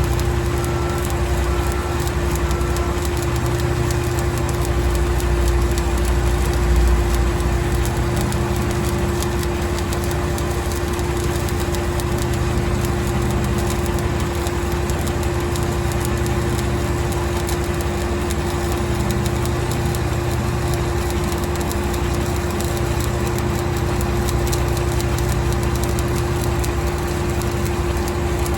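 Engine-driven welding generator, a Miller Bobcat 265, running steadily under load with a constant hum, and a crackling hiss over it like an arc being struck and run. Three short beeps sound in the first few seconds.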